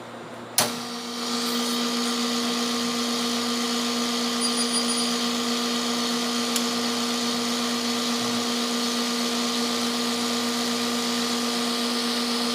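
Small electric motor of a barista's machine, switched on with a click about half a second in, running at a steady pitch with a hum and a whirring hiss, then cut off abruptly near the end.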